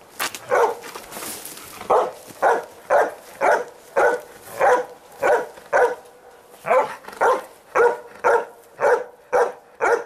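Search-and-rescue dog barking repeatedly at a stack of concrete blocks: a couple of barks, a short pause, then a steady string of about two barks a second. This is the sustained bark alert a search dog gives when it has found a hidden person.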